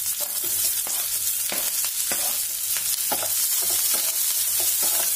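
Sliced onions sizzling in hot mustard oil in a kadhai, freshly added and frying hard, with the repeated scrape of a slotted spatula stirring them through the oil.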